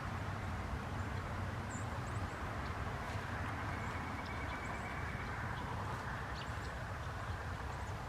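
Steady outdoor background noise: a low rumble and hiss that swells slightly midway, with faint short high chirps now and then.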